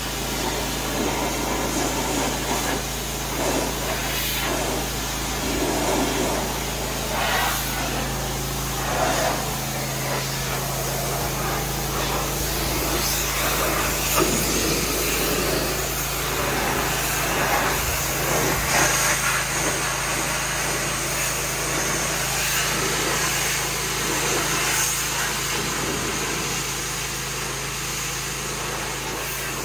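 A pressure washer running steadily, its high-pressure water jet hissing as it sprays the wooden deck stairs, the spray noise changing as the wand moves over the boards.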